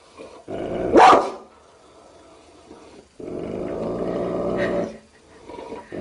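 Large mastiff-type dogs growling at each other face to face: a short sharp bark about a second in, then a longer, rumbling growl from about three seconds.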